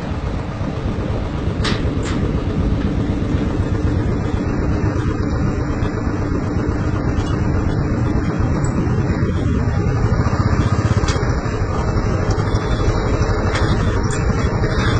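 Royal Enfield Bullet's single-cylinder engine running steadily as the motorcycle rides across a suspension bridge's metal deck, with a few light clicks.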